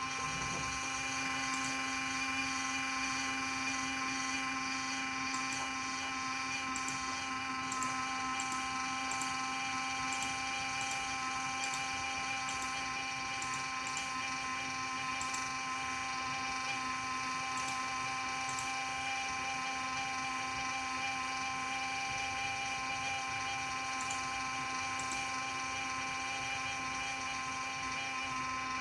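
Cooling fan inside a Q-See QC808 security DVR running with a steady, loud, high-pitched whine and hum at an unchanging pitch, with faint light ticks now and then.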